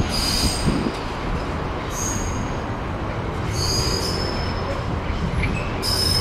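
A train running past with a steady rumble, its wheels giving a high squeal that comes and goes about four times.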